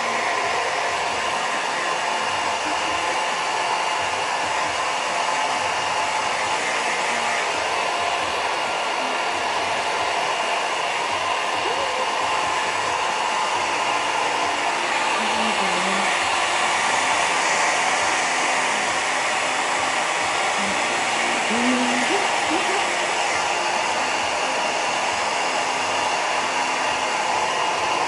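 Handheld hair dryer running steadily, blowing air to dry a dog's fur, with a constant whooshing noise and a faint steady whine in it.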